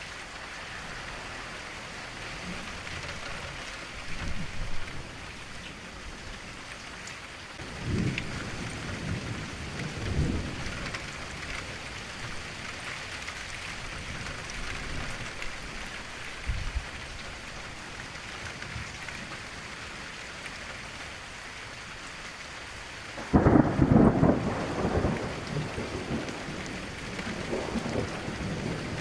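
Thunderstorm: steady rain with several low rolls of thunder, and one loud crack of thunder about 23 seconds in that rumbles away over the following seconds.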